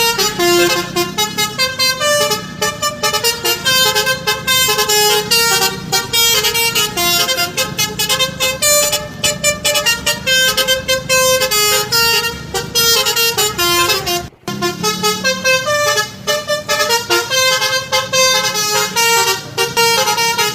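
Telolet Basuri multi-tone bus horn playing a fast, continuous melody of rapidly changing notes, with one brief break about two-thirds of the way through.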